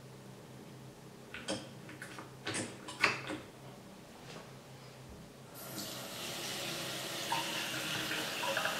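A few short clicks and squirts from a plastic pump soap dispenser being pressed. About halfway through, a kitchen tap turns on and water runs steadily into a stainless steel sink.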